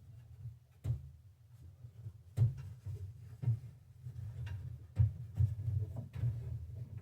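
Scattered clicks and knocks of hand tools and small metal parts being handled, about five sharp ones spread over the seconds, over a low rumble.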